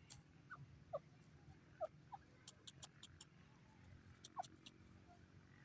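Grey francolin foraging: several faint, short squeaky notes that slide downward in pitch, mixed with sharp little clicks and rustles as it pecks at dry grass and sand.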